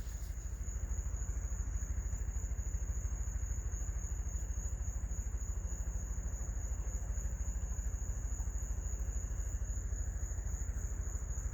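Helicopter passing overhead, its rotor making a steady, rapid low beat, with crickets trilling in one steady high note behind it.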